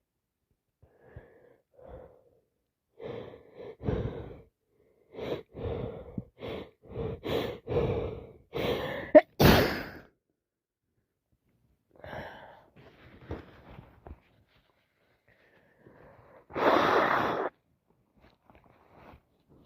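A person with a head cold working up to a sneeze: a series of gasping, wheezy in-breaths that come faster and louder over several seconds, ending in one sharp, wet sneeze about nine seconds in. A few small sniffs follow, then a second loud, noisy burst lasting about a second near the end.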